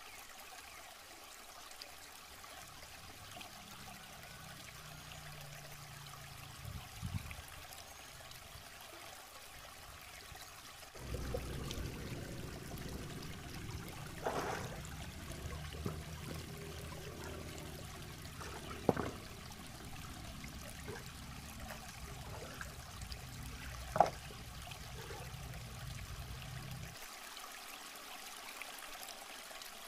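Shallow rocky river flowing and trickling steadily, with a few short sharp splashes from wading in the water; the loudest two come in the second half.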